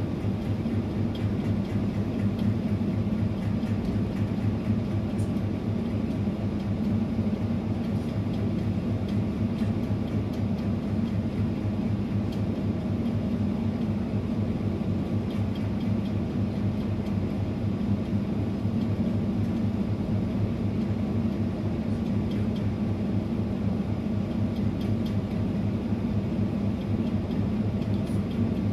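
Steady, unchanging mechanical hum of a household appliance's motor, such as an air conditioner, fan or refrigerator compressor running.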